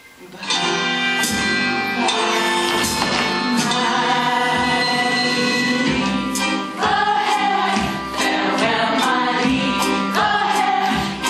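Live musical-theatre accompaniment with a regular percussive beat, joined by voices singing together that come forward about seven seconds in.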